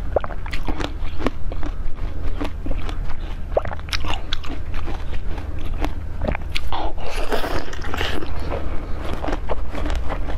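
Teeth biting and crunching hard ice from a frozen block packed with red seeds: a run of sharp cracks, then a dense stretch of crunching and chewing about seven seconds in. A steady low hum lies underneath.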